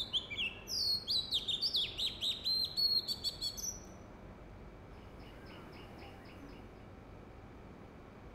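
Oriental magpie-robin singing: a loud run of varied whistled notes, many sliding up or down, for about four seconds. A fainter run of short, quickly repeated notes follows around the middle.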